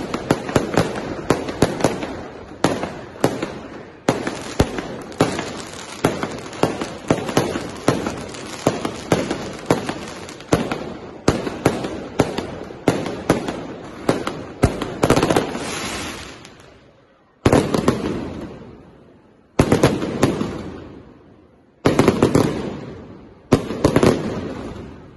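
Aerial fireworks display: a fast, dense volley of shell bursts and crackling reports. About two-thirds of the way in it gives way to single heavy shell bursts about two seconds apart, each with a long echoing tail.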